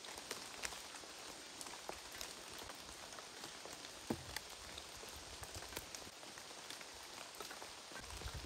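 Pinches of dry spice sprinkled by hand onto a heap of chopped onion and walnuts on a wooden board: faint, scattered light pattering of falling grains over a steady background hiss, with one soft knock about four seconds in.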